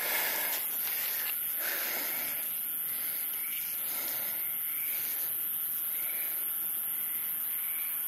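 Night insects chirping in a steady, high-pitched hiss, with fainter, lower chirps coming now and then.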